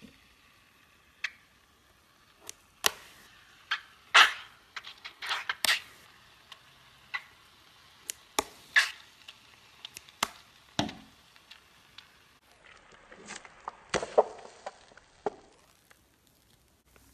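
Thick slime clicking and popping as it is squeezed out through cuts in a rubber stress ball, mixed with scissor snips: a dozen or so sharp irregular clicks, then a denser run of wet squishing a little after the middle.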